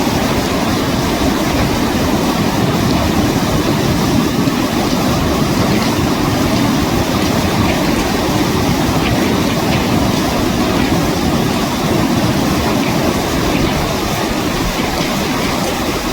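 Steady, loud rushing of a fast mountain river, an even wash of water noise with no break or change.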